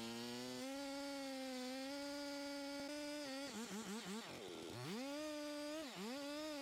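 Chainsaw engine revving up to a high steady pitch, which wavers and dips several times in the second half before picking up again.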